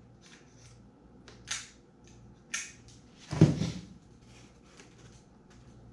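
Foam pieces being handled and fitted: a couple of short scraping strokes, then one heavy thump about three and a half seconds in.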